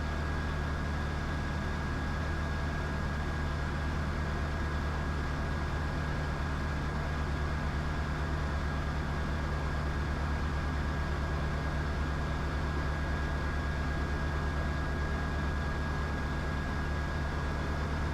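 Diamond DA20 light aircraft's piston engine and propeller droning steadily in the cockpit, with a thin steady whine above the low drone.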